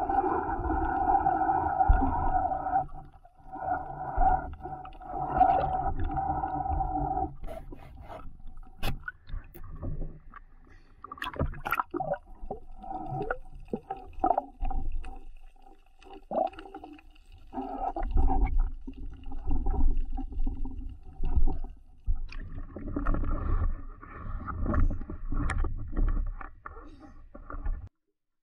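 Underwater sound picked up by a camera: a steady droning hum that comes and goes in long stretches, with scattered sharp clicks and knocks. It cuts off suddenly near the end.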